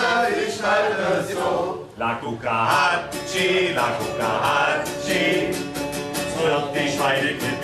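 Voices singing a song to a strummed acoustic guitar.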